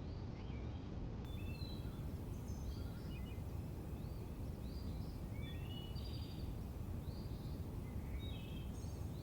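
Birds chirping, with short calls scattered throughout, over a steady low background rumble of outdoor ambience.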